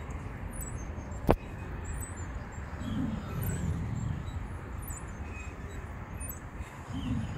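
Steady outdoor background noise with a low rumble, like distant traffic, with faint far-off voices and a single sharp click about a second in.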